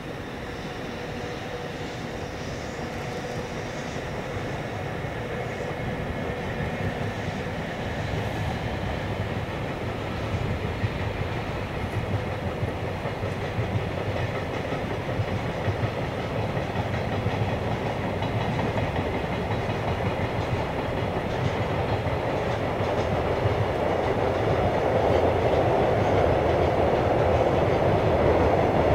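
Container freight train hauled by an EF65 electric locomotive passing over a bridge: a steady rumble of wagon wheels on the rails that grows louder as the train comes nearer.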